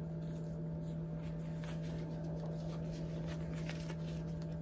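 A steady low electrical hum, with faint rustling and soft scratchy handling noises as fabric dog booties are pulled off a small dog's paws.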